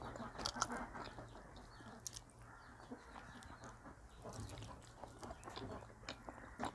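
Faint wet mouth sounds of eating soft dhido and chicken gravy by hand: chewing, lip smacks and finger licking, heard as scattered short clicks.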